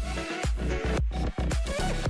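Electronic dance background music with a steady heavy beat.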